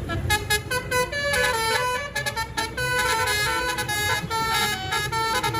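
Indonesian 'telolet' bus horn playing a quick melodic tune, its multi-tone notes stepping up and down in pitch, over a low rumble.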